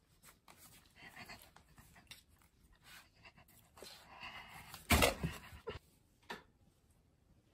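A cat moving right against the phone, making close rustling and scratching clicks, with one louder knock about five seconds in.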